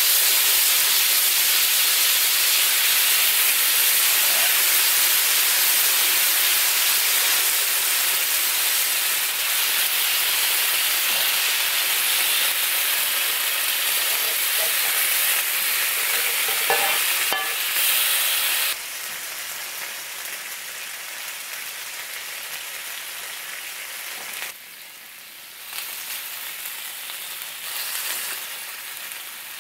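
Chop steak in ketchup sauce sizzling on a preheated iron sizzle plate: a loud, steady hiss that drops suddenly to a softer sizzle about two-thirds of the way through.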